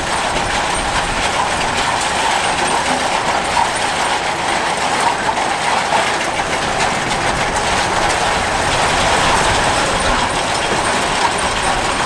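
Zetor diesel tractor running as it pulls a Ransomes Underhaug potato harvester through the row. The harvester's chain webs and elevators give a steady, dense clatter.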